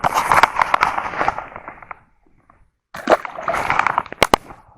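Water splashing and sloshing in two bursts of about two seconds each, with a few sharp knocks near the end.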